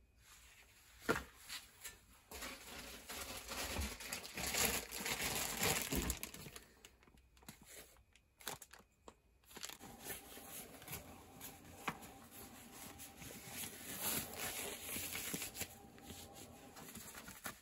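Crinkling and rustling of a thin plastic bag holding a respirator, together with rubber household gloves being handled and pulled on, with scattered small clicks. A short break in the sound comes about eight seconds in.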